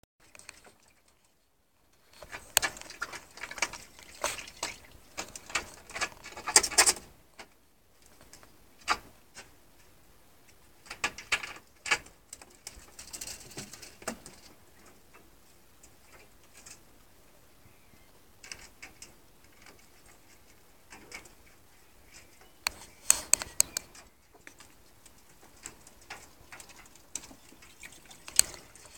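Ferrets scrabbling about a wire-mesh hutch: irregular bursts of clicking, rattling and knocking, starting about two seconds in, densest over the next few seconds and returning in shorter clusters with quieter stretches between.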